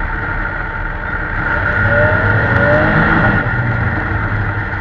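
Motor vehicle engine running while driving over snow, growing louder about two seconds in, with faint rising and falling tones in the middle.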